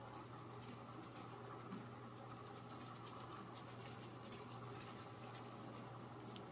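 Faint, light scratchy ticking and rustling as a kitten paws at a pom-pom wand toy on a fabric sofa, over a steady low hum.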